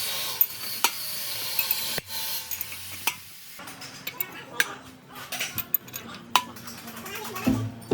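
A steady hiss for about two seconds, then scattered light metallic clicks and taps of small metal parts being handled. Background music begins near the end.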